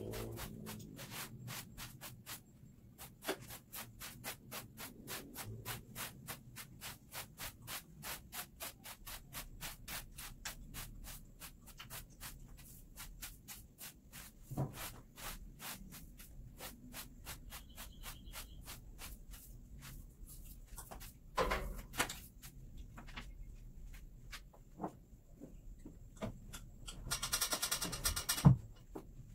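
A broom sweeping a hard floor in quick, even strokes, about three a second, which slow and thin out later. Near the end there is a louder rustle that finishes in a thump.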